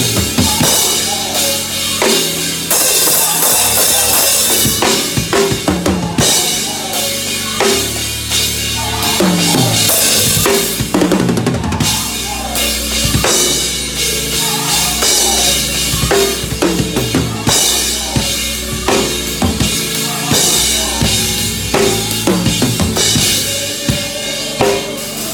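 Drum kit played fast and busy, with snare, bass drum and cymbal hits, over a music track with a gospel groove.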